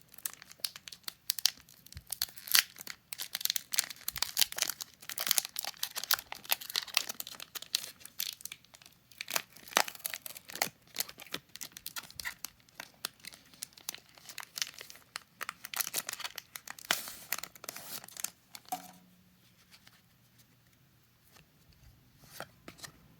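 Foil booster-pack wrapper of a Pokémon trading card pack being crinkled and torn open, a long stretch of rapid crackling and tearing that stops about nineteen seconds in, leaving only a few faint clicks.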